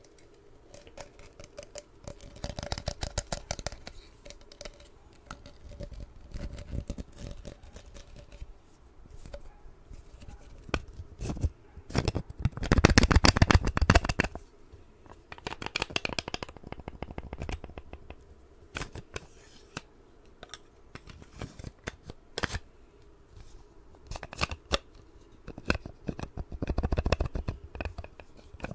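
Close-miked ornate knife and its metal-fitted sheath being handled, the blade slid in and out: irregular bursts of scraping and rubbing with sharp clicks. The loudest burst comes a little before halfway, and another comes near the end.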